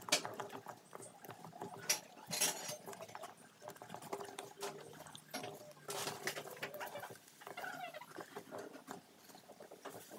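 A metal spoon stirring and scraping thick royal icing of powdered sugar, egg white and lemon in a plastic cup, making irregular small clicks and scrapes against the cup.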